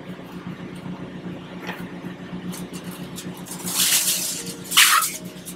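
Steady machine hum of the food trailer's running equipment, with an even pitched tone. About four and five seconds in, two short, loud hissing noises cut across it.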